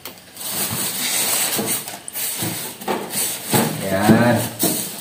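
Plastic packaging wrap rustling and crinkling as it is handled and pulled off a boxed range hood, with a voice briefly near the end.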